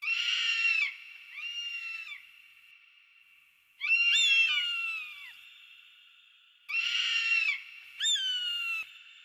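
Eagle calling: five high cries, some rough and some clear whistled notes sliding down in pitch, the one about four seconds in the longest.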